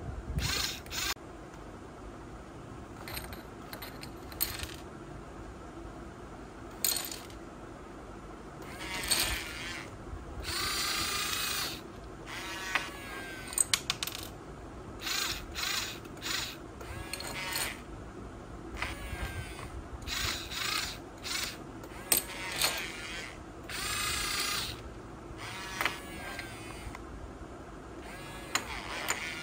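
Yigong RC toy excavator's small electric motors and gearboxes whirring in short bursts, one after another, as the boom, arm and bucket are driven, with a few sharp clicks in between.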